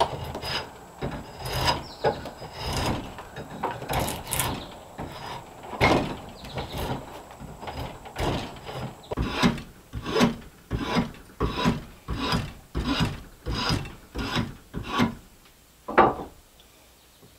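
A wooden stick clamped in a bench vise being shaped into a 1-inch dowel with a hand tool: repeated strokes of the tool scraping across the wood. They come unevenly at first, then settle into a steady rhythm of about three strokes every two seconds, with one last stroke near the end.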